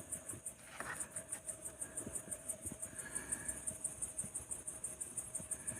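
Insects chirping in a fast, even, high-pitched pulse of about nine beats a second, over a faint steady lower hum, with a few soft knocks and one sharper knock near the end.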